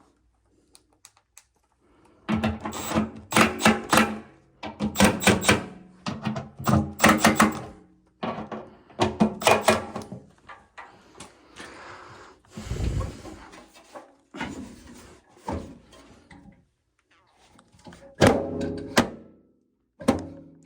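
Repeated knocking and metallic clatter in clusters of rapid strikes, each with a short ringing tone, with a rougher scraping patch midway.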